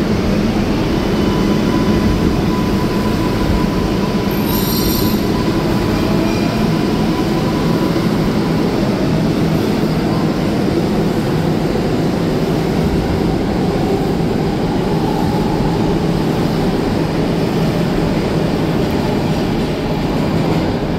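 R188 subway train pulling out of an underground station and running off into the tunnel: a steady loud rumble of wheels on rail, with a thin high tone over the first half and faint rising whines as it gathers speed. A brief high-pitched squeal comes about four and a half seconds in.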